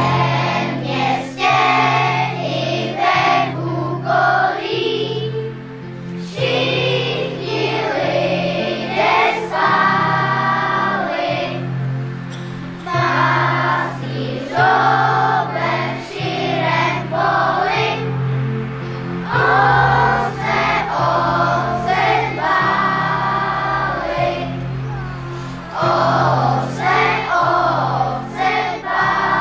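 A children's choir singing a Christmas song in phrases of a few seconds each, over steady instrumental accompaniment.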